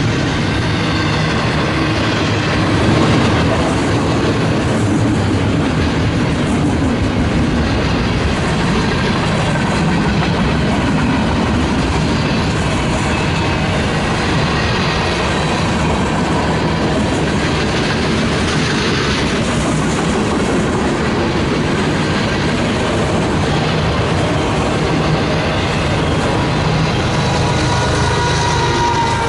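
Union Pacific freight train's cars rolling past, a steady loud noise of steel wheels on the rails.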